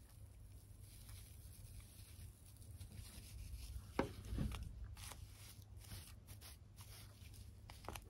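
Faint rubbing and rustling of scrubby yarn and a crochet hook as the work is handled. There is a sharp tap about four seconds in, followed by a soft knock.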